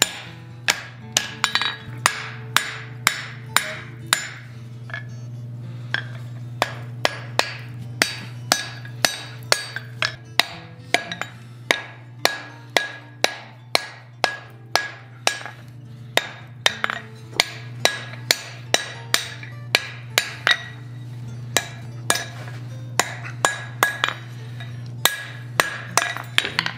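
Blacksmith's hand hammer striking red-hot steel on an anvil: runs of quick blows, about two a second, each with a short metallic ring, broken by a few brief pauses. A steady low hum runs underneath.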